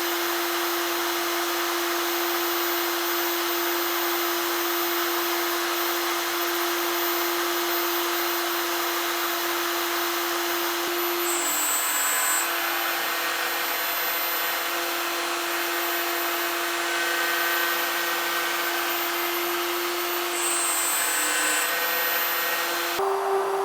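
CNC router spindle running steadily while milling, a constant hum under a dense cutting hiss. Just before the end the sound changes abruptly to a slightly higher steady hum.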